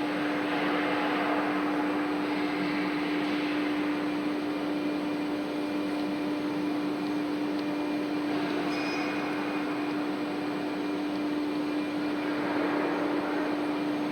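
Blue Elephant 1530 ATC CNC router running with a steady high hum, with a rushing noise that swells about a second in and again near the end as the machine's axes are jogged to set the X and Y origin.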